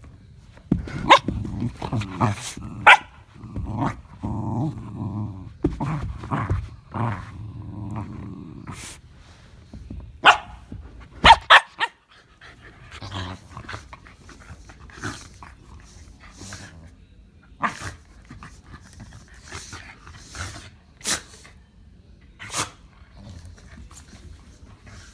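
Two Shetland sheepdogs play-fighting, with rumbling growls and short barks over the first nine seconds or so. A few loud, sharp barks follow about ten to eleven seconds in, then only scattered short, sharp sounds.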